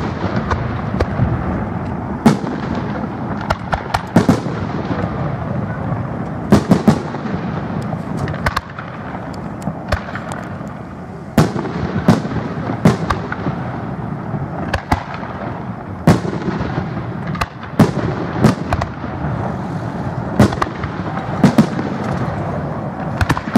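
Aerial firework shells bursting in quick succession, a sharp bang every second or two, each with an echoing tail, over a steady background rumble.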